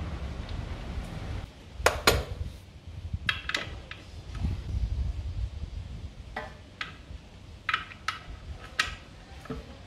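Sharp metallic clinks and taps of a hand wrench on the motorcycle's oil drain bolt under the engine, in short groups of two or three, as the drain plug is worked after the oil has finished dripping out.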